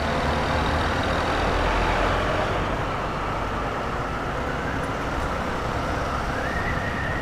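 Motorcycle being ridden in city traffic, its engine and the wind rushing over the rider's camera microphone in a steady noise. A faint thin tone steps up in pitch about six seconds in.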